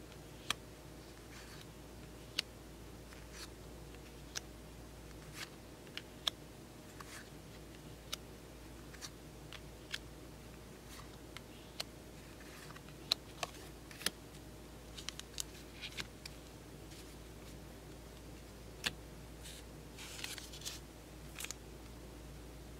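Pokémon trading cards being flipped through one by one in the hands, each card giving a sharp little click or snap about every second. Near the end comes a short crinkly rustle as a booster pack wrapper is handled.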